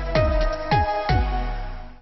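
Electronic TV news intro music: held synth tones over a few deep hits that drop quickly in pitch, fading out at the end.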